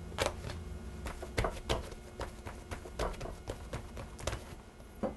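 Hands patting, pressing and flipping bread dough on a wooden cutting board: irregular soft slaps and taps.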